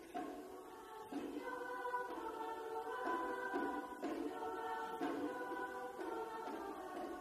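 High school chorus singing held chords, moving to a new chord about once a second.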